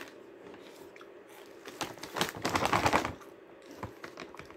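Plastic snack bag crinkling as a hand rummages inside it for a piece. A dense burst of crackles starts a little under two seconds in and lasts over a second, followed by a few smaller rustles.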